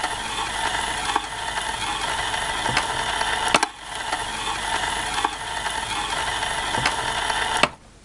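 Old film projector sound effect: a steady mechanical clatter with film crackle and a few sharp pops, cutting off suddenly near the end.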